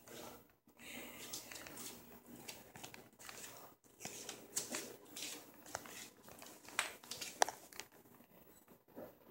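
A cat batting at and mouthing a grasshopper on a tile floor: faint, irregular crinkly clicks and scuffs, a few sharper ones near the middle and towards the end.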